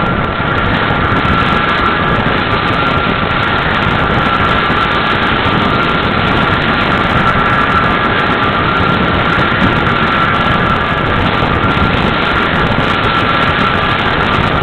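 Approaching tornado giving a loud, unbroken roar that sounds like a train, with a steady high hum running through it.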